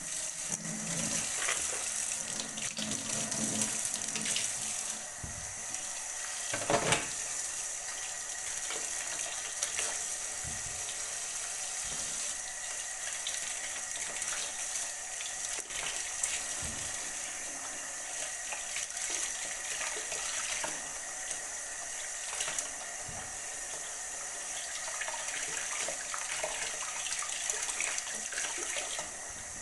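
A water tap turned on and running steadily into a sink, with occasional short knocks, the loudest about seven seconds in.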